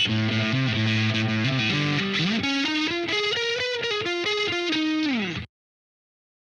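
Fender Stratocaster electric guitar played through a pedalboard of effects. It plays a low riff, slides up into a higher single-note melodic line, then slides back down. The sound cuts off suddenly about five and a half seconds in.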